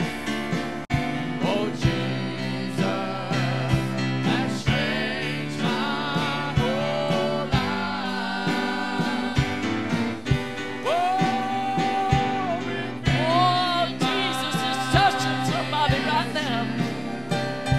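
Three voices, a young man and two young women, singing a gospel song in harmony through microphones, with long held notes. They are accompanied by a Nord Electro 6 stage keyboard playing sustained chords.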